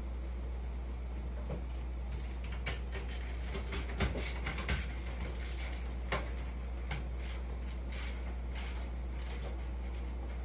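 Scattered metallic clicks and clanks of enclosure frame parts and hardware being handled and fastened, loudest a few seconds in, over a steady low hum.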